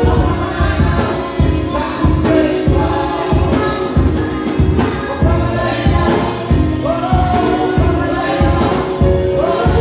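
Mixed male and female gospel vocal group singing in harmony into microphones, backed by a drum kit keeping a steady beat and a keyboard.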